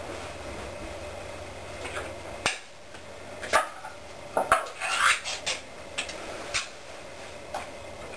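Dishes and utensils clinking and knocking in a run of separate strikes over a few seconds, as food is got ready. About two and a half seconds in, a low steady hum stops at a sharp click.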